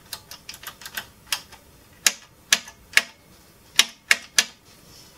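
Front-panel push-button switches on a Pioneer SA-620 amplifier being pressed, a run of sharp, irregular clicks, a dozen or so, the loudest ones in the second half.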